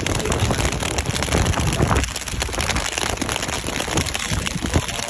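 Rain falling on a moving car, many small drop hits over rushing wind and road rumble at the open window.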